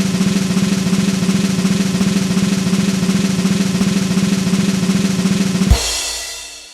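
Snare drum roll sound effect, a fast even roll for over five seconds that ends in a crash hit which rings and fades away: the build-up before a lottery or quiz result is revealed.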